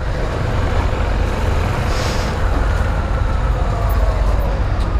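Honda Tornado 250's single-cylinder four-stroke engine running at low road speed in city traffic, with wind and road noise. A brief hiss about two seconds in.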